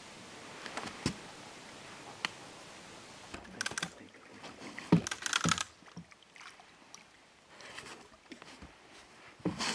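A hooked fish splashing at the surface close to the bank, two short bursts about three and a half and five seconds in, among scattered light clicks and knocks from handling the rod and reel.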